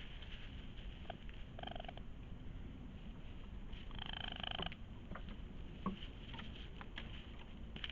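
Raccoon giving small, high, pitched cries: a short one about two seconds in and a longer, fuller one about halfway through, with small clicks and rustles between them.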